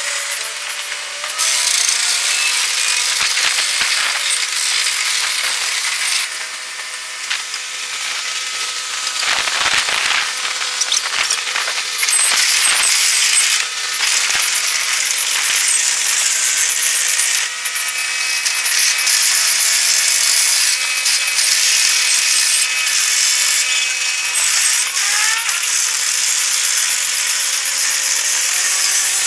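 Zoomlion crawler crane's engine and steel tracks clattering as it drives up onto a lowboy trailer, played back eight times fast so it comes out as a rapid, high-pitched mechanical chatter with gliding whines.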